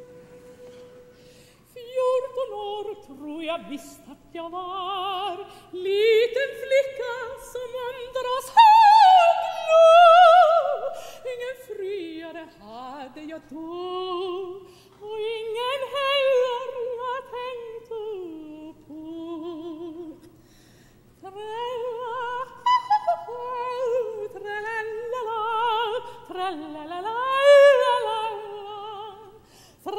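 Solo operatic soprano singing a Swedish folk song unaccompanied, in phrases with a wide vibrato. A single steady tone is held for the first two seconds before the voice comes in.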